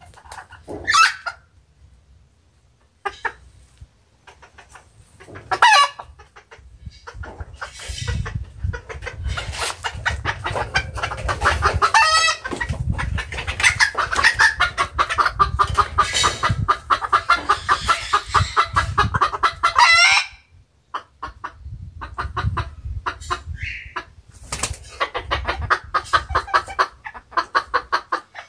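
Chickens clucking and squawking: a few sharp single calls at first, then a long run of rapid repeated calls through the middle, and more fast clucking near the end.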